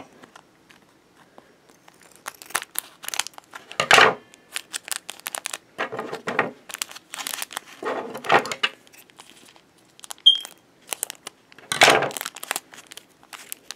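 Foil blind-bag wrapper crinkling and crackling as it is handled and snipped open with scissors, in short irregular spells every couple of seconds, loudest about four and twelve seconds in.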